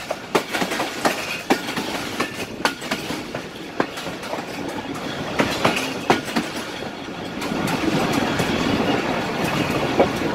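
Passenger train running along the track: the coach's wheels clatter over rail joints in irregular clicks several times a second, over a steady rumble of the running gear. The rumble grows louder about two-thirds of the way through.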